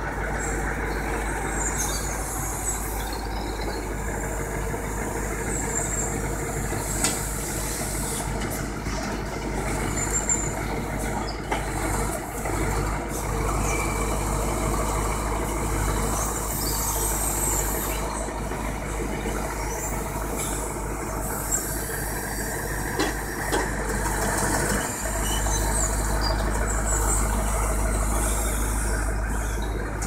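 Timber lorry's diesel engine running steadily to drive its hydraulic log crane, with a few sharp knocks as oak logs are gripped, swung and set down.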